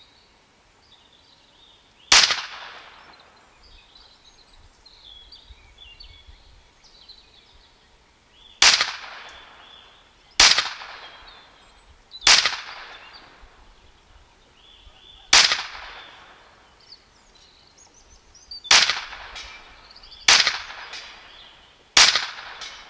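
A .22 PCP air pistol built on the Huben K1 action firing eight sharp shots at irregular intervals, each shot followed by a short ringing tail.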